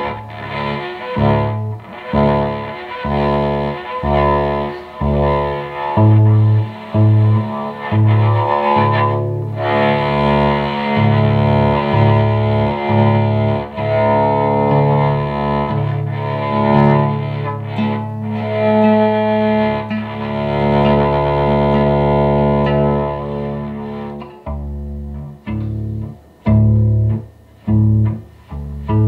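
Electric cello played solo, bowed and plucked: a slow line of sustained notes, turning to short, separated notes over the last few seconds.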